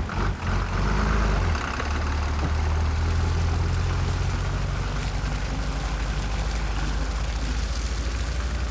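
Farm tractor engine running steadily under load as it tows a wrecked car through mud, a constant low drone.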